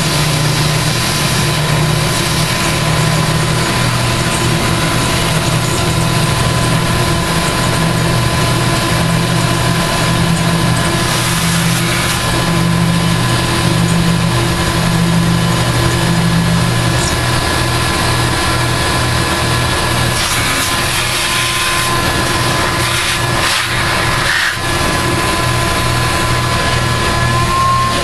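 Jet JMD-15 mill/drill converted to CNC, its spindle running while an end mill cuts a slot into a brake rotor. The machine noise is steady, with a high whine running over it.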